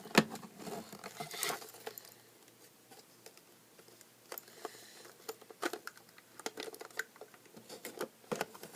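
Small plastic clicks, taps and a short crinkle from handling a System Sensor SpectrAlert horn-strobe on its mounting plate while trying to work it loose without the removal tool. The handling goes quiet for a couple of seconds in the middle, then the scattered clicks resume.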